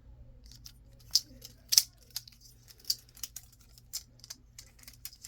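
A 3D-printed carbon-fibre PLA balisong (butterfly knife) being flipped and handled: its plastic handles and blade click against each other in irregular sharp clicks, a few a second, the loudest about a second and a half in.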